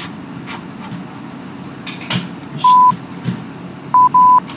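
Censor bleeps: a loud, pure 1 kHz tone sounding three times, once about two-thirds of the way in and twice in quick succession near the end, covering bleeped-out swearing. Between the bleeps there are brief rustles of movement.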